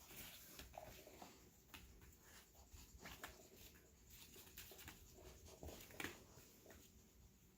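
Near silence, with faint, scattered taps and clicks of a puppy working at a Kong food toy.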